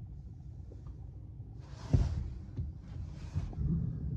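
Low rumble inside the cabin of a Volkswagen Golf GTE plug-in hybrid rolling slowly on electric power in E mode, with its petrol engine off. A single thump about two seconds in and two soft hisses shortly after.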